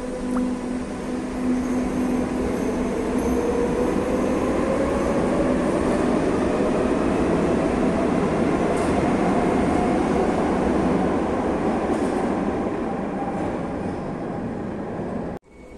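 Madrid Metro Series 5500 electric train pulling out of the station and accelerating, a heavy rumble of wheels on rails with a motor whine that rises steadily in pitch as it gathers speed. The sound eases a little as the train enters the tunnel, then cuts off suddenly near the end.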